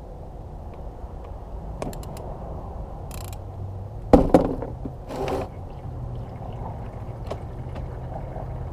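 Motor oil draining steadily from the motorcycle's engine into a catch pan, with a few light clicks about two seconds in and two sharp metallic knocks just after four seconds.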